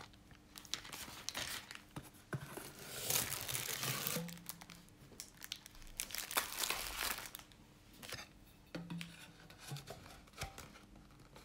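Clear plastic bag full of small diamond packets rustling and crinkling in several bursts as it is handled and set down on the table.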